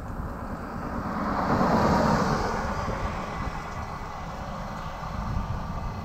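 A car passing by: its noise swells to a peak about two seconds in, then fades, over a steady low rumble.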